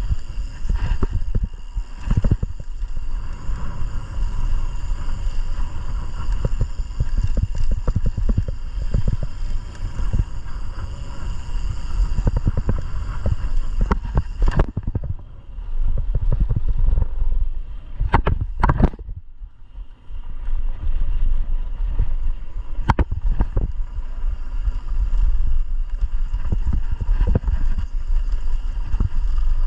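Mountain bike riding down a dirt trail: a steady rush of wind and tyre rumble on the microphone, with constant clattering and knocking from the bike over rough ground. Partway through, the rushing drops away for a few seconds and a few sharp clicks stand out before the riding noise picks up again.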